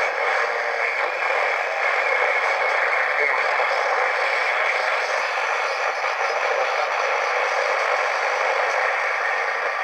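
Portable radio's small speaker giving out a steady, thin static hiss, with no clear station coming through.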